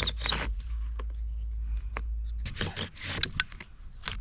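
Bow drill working: the wooden spindle grinds in the hearth board in rhythmic back-and-forth scraping strokes, in two bursts with a quieter stretch between. The spindle keeps sticking in the bearing block, which the fire-maker blames for not getting an ember.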